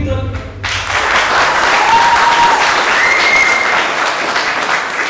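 Dance music stops under a second in and an audience claps, with two brief high calls rising above the clapping.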